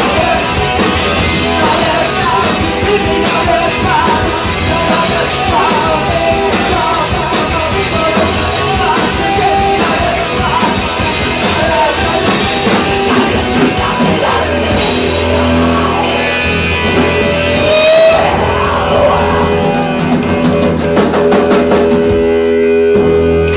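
Live punk rock band playing loud: electric guitar, bass guitar, drum kit and a shouted lead vocal. From about fourteen seconds in, the band moves to long held chords with fewer drum hits as the song nears its end.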